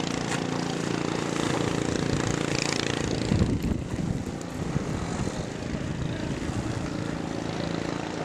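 Boat motor running steadily, with a brief louder rush of noise about three and a half seconds in.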